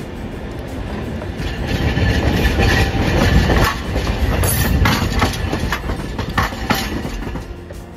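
Hiroden 700-series street tram passing close by. Its wheels clack over the rail joints and points of a track junction over a low running rumble. The sound swells to a peak in the middle and fades near the end.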